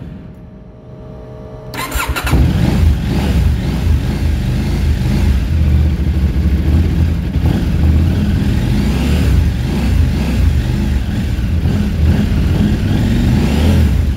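KTM 790 Adventure S parallel-twin engine cranking and catching about two seconds in, then running at a steady idle. It is a cold start.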